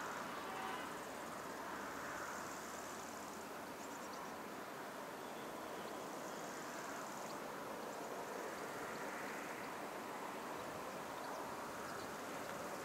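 Faint, distant rushing of a taxiing Boeing 757-300's jet engines, swelling and easing slowly, with high insect chirring coming and going.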